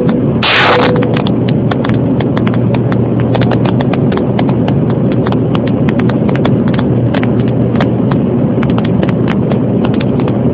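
Cabin noise inside a climbing Embraer 145 regional jet: the steady rush and hum of its rear-mounted turbofans and airflow, heard through the cabin. Dense, irregular crackling clicks run over it, with a short loud hiss about half a second in.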